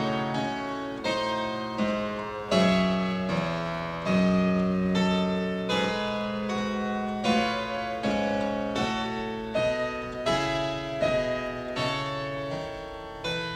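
Background classical piano music: unhurried chords and melody notes struck about once a second, each ringing and dying away.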